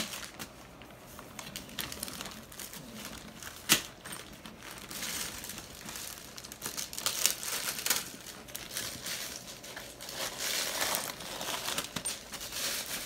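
Plastic mailing bag crinkling and rustling in irregular bursts as a poodle mouths, shakes and tears at it, with one sharper crack about four seconds in.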